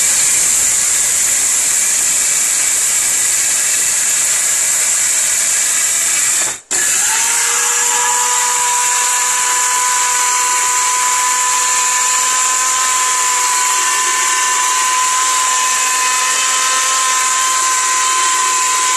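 Electric kitchen blender running at full speed, grinding a dry load into fine powder. It cuts off briefly about six and a half seconds in, then starts again with a steady high whine.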